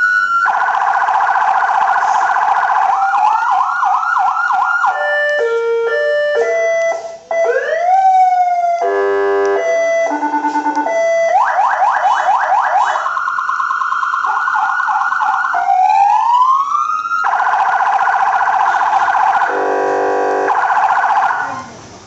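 A 400 W electronic police siren switching between its tones: rapid yelp sweeps, slower rising wails, a stepped two-tone and a short buzzing horn tone. It cuts off near the end.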